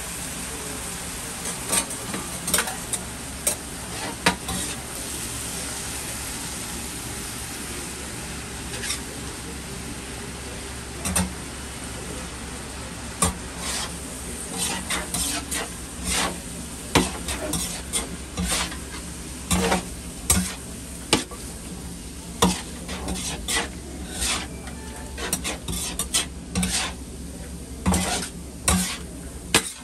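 Food sizzling on a hot iron griddle, with metal utensils clinking and scraping on it in short irregular strokes. The strokes come more often in the second half.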